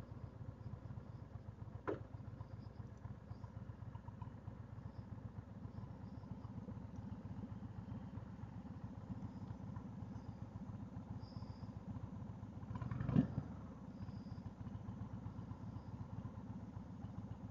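Heavyweight V-twin motorcycle engine running steadily at low revs, with a short louder knock about thirteen seconds in.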